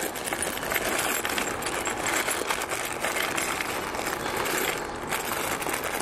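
Steady rattling and clinking of small steel hardware, bolts and washers being handled.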